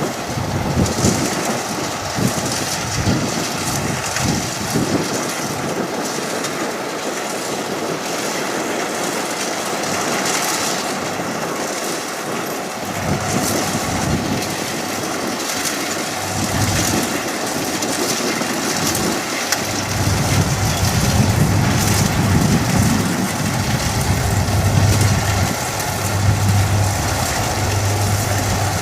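Kubota DC60 combine harvester running at speed while cutting rice: steady machine noise with an engine hum. The low hum grows stronger and louder about two-thirds of the way through.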